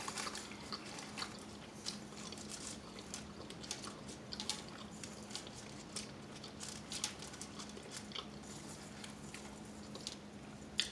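Close-miked chewing and biting of food, with many short wet mouth clicks and smacks.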